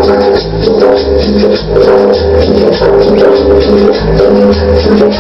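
Loud dance music played over a sonidero sound system: a bouncing bass line under sustained chords, with a quick, steady percussion beat.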